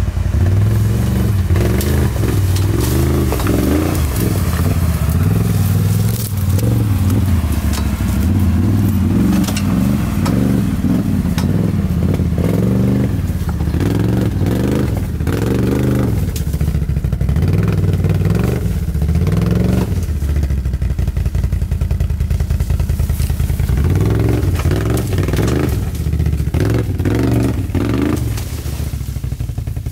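Can-Am ATV engine revving up and down at low speed as it crawls over rocks and through brush, with clattering and scraping of branches and stones against the machine.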